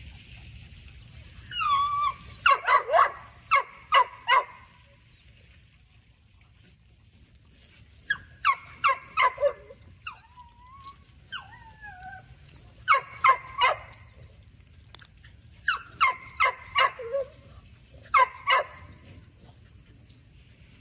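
American pit bull terrier barking up at a tree in quick bursts of three to five barks, with high whines between the bursts.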